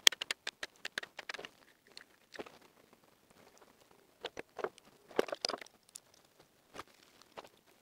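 Irregular sharp clicks, snaps and rustling as stiff electrical installation wires are bent and worked with hand tools at a flush wall box, with a loud click right at the start and bunches of clicks a little after the middle.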